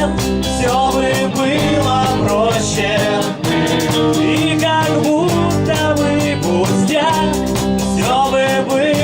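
Rock band playing live: a drum kit keeps a steady beat under guitar and a singing voice.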